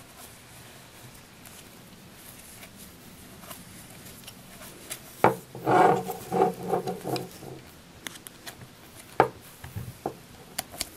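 Small clicks and rubbing as a loom hook works yarn loops over the pegs of a plastic round knitting loom. The hook knocks against the pegs with a few sharper clicks, the loudest about five and nine seconds in.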